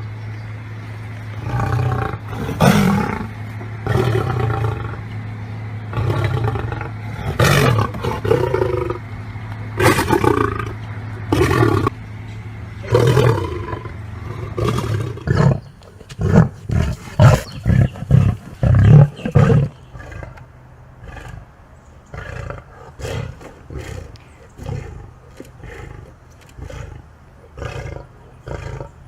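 Lion roaring: several long, loud roars, then about sixteen seconds in a run of short, loud grunts about two a second, after which quieter short grunts carry on about once a second.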